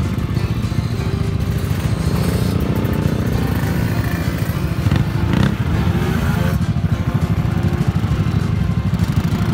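Several motorcycles and scooters idling together, a steady low, pulsing exhaust rumble.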